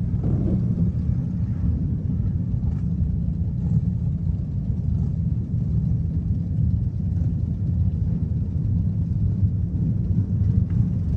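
A pack of Harley-Davidson touring motorcycles with V-twin engines running together at idle and low speed, a steady, dense low rumble.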